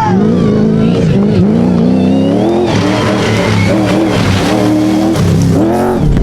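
Rally racing engine running hard, its pitch climbing and then dropping sharply several times with gear changes and throttle lifts.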